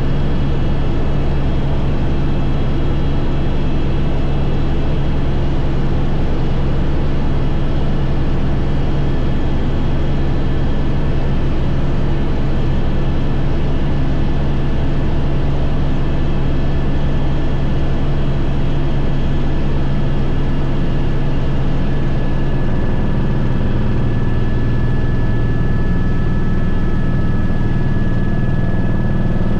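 Helicopter in flight heard from inside the cabin: a loud, steady drone of main rotor and turbine with a thin high whine over it. The low drone shifts in tone about 23 seconds in.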